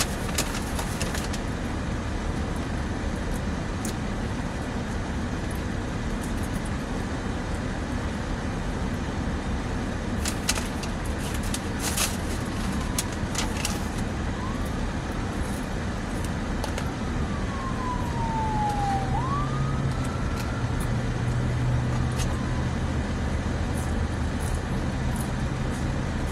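Steady road traffic noise heard from inside a parked vehicle, with a siren wailing, falling and rising in pitch, from about halfway through. A few brief clicks come before the siren, and a low hum grows louder near the end.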